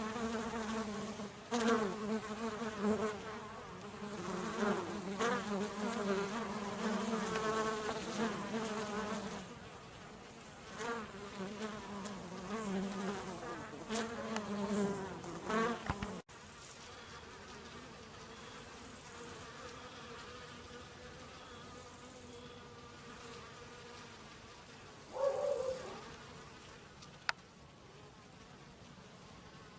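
Bees buzzing in flight close by, several wingbeat tones wavering in pitch as they come and go around honey on a flower. About halfway through the buzzing drops abruptly to a fainter, steadier hum, with one short louder buzz passing near the end.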